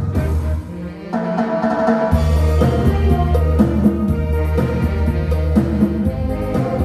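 Orchestra playing instrumental pop music with a drum kit keeping a steady beat under a bass line. It drops back briefly about half a second in, then the full band comes back in.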